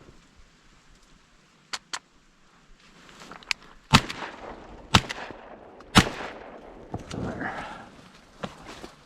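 Three shotgun shots about a second apart, each ringing out and fading. Two short, sharp clicks come about two seconds in, before the shooting.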